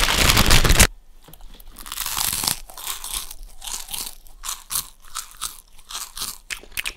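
A loud rustle of a snack bag for about the first second, then close-up crunching and chewing of a crunchy snack with the mouth right at a microphone, ASMR-style, in many short crackling bites.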